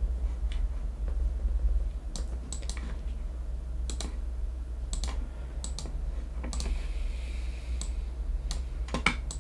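Scattered clicks from a computer keyboard and mouse, about one a second, with a steady low electrical hum underneath.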